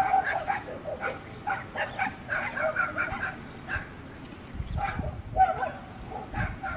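A pack of dogs fighting: many short yelps, whines and barks overlapping, several dogs at once.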